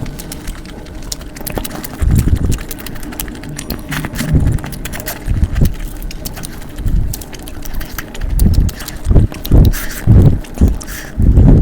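Close-miked chewing and eating, with irregular low thuds roughly a second apart that come faster near the end, among many small wet clicks.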